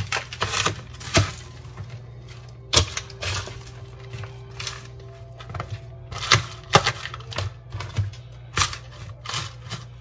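Spatula stirring cornbread dressing in a disposable aluminium foil pan: irregular scraping, tapping and crinkling clicks of the thin foil.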